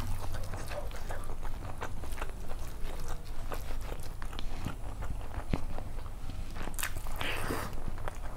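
Close-miked eating sounds: a person chewing yellow pulao rice with chicken curry, with wet mouth clicks and smacks. A brief louder noisy rustle comes about seven seconds in, over a low steady hum.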